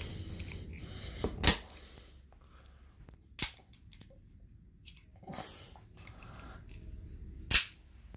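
Microtech Scarab 2 double-action out-the-front automatic knife firing and retracting its spring-driven blade with the thumb slide: three loud, sharp snaps, about a second and a half in, about three and a half seconds in, and near the end, with a fainter click just before the first.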